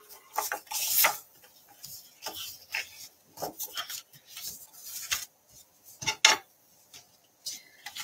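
Cardstock and paper-crafting pieces being handled and shifted on a work table: irregular short rustles, scrapes and light clacks, with a sharper clack a little after six seconds in.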